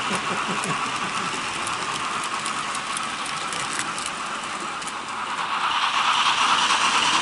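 Model trains running on a layout: a steady whir of small electric motors and wheels on the rails, with faint ticks of the wheels over rail joints. It grows louder about five and a half seconds in.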